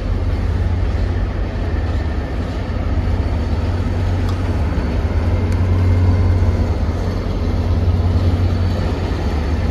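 MBTA diesel commuter train rolling slowly past on a far track: a steady, loud low rumble that swells slightly about two-thirds of the way through.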